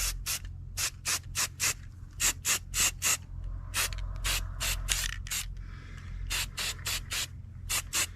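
Aerosol can of high-gloss black spray paint being shaken, its mixing ball rattling in quick strokes about three times a second, with a couple of short pauses.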